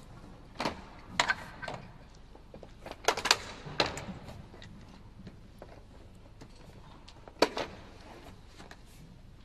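Quiet room tone broken by a few short, sharp knocks and clicks in small clusters: about a second in, again around three to four seconds in, and twice in quick succession near the end.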